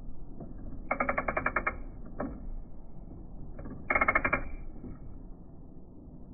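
Small hand ratchet with a socket clicking in two quick runs of rapid clicks, about a second in and again about four seconds in, as it winds a bolt back in.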